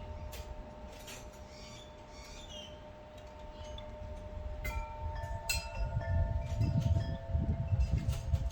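Metallic chiming: long, steady ringing tones with scattered light clinks, over a low rumble that grows louder about halfway through.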